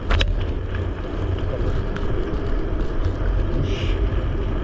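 Wind buffeting the action camera's microphone while riding a folding bike, with tyre noise on coarse asphalt as a steady low rumble. A brief sharp clatter comes just after the start.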